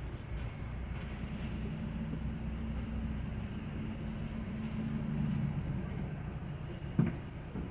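Low rumble of a motor vehicle's engine running nearby, with a steady hum through the middle, and one sharp knock near the end.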